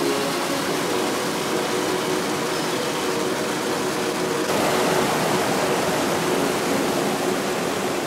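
Fast-flowing water rushing steadily, a dense hiss that grows fuller and slightly louder about halfway through.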